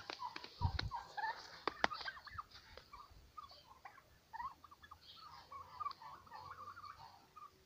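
Flock of young domestic turkeys calling with many short, high chirps and peeps scattered throughout. A few sharp clicks and a low thump sound in the first two seconds.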